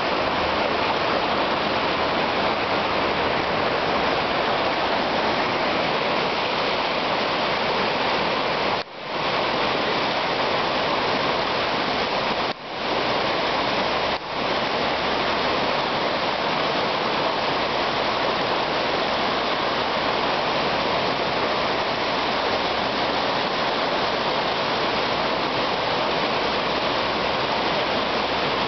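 Swollen river in flood, fast whitewater rushing steadily over its bed, with three brief dips in the sound around the middle.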